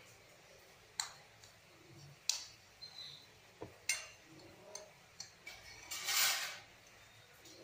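A ceramic cake plate and the cake on it being handled on a tabletop: a few sharp clicks and smaller taps, then a rustling scrape lasting about a second, about six seconds in.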